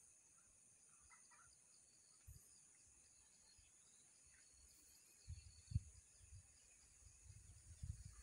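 Faint dusk outdoor ambience: a steady high insect drone with a few faint bird chirps about a second in. In the second half come low bumps and rumbles.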